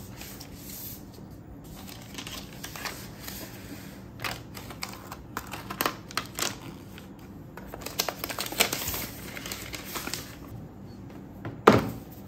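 Handling sounds of unboxing a laptop: scattered light clicks and rustling of the thin paper wrap sheet, then a sharp knock near the end as the MacBook Pro is set down on the desk.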